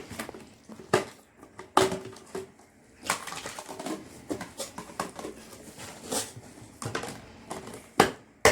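Plastic food storage boxes and bowls being handled and set down: several sharp clicks and knocks of hard plastic, with rustling and handling noise between them.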